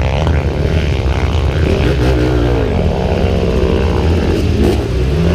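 Trail motorcycle engine running steadily, its pitch wavering up and down with the throttle.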